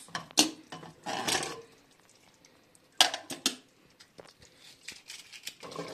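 Pressure cooker being opened by hand: a sharp metal click, a short rushing scrape, then three quick clacks about three seconds in as the lid is turned free and lifted off.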